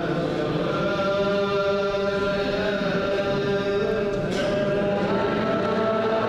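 Group of clergy chanting Ge'ez (Ethiopic) liturgical chant together, holding long sustained notes that step to a new pitch a few times.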